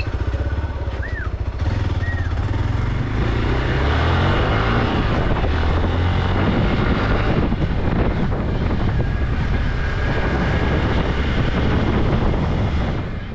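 Hero XPulse 200 4V's single-cylinder engine running as the motorcycle rides along, steady throughout and a little louder from about four seconds in. Two brief high chirps sound near the start.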